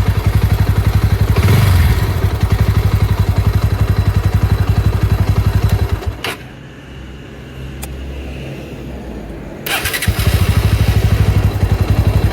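Bajaj Pulsar NS160's single-cylinder engine running with an even, rapid firing beat, recorded on a phone. It goes quieter for about four seconds in the middle, with a couple of clicks, then comes back at full level. The owner complained it sounds too heavy, but the reviewer judges it the same as a normal NS, the heavy 'gadgad' coming from the phone recording.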